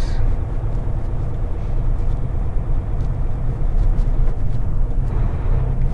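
Mack truck's diesel engine and road noise heard from inside the cab while driving: a steady low drone.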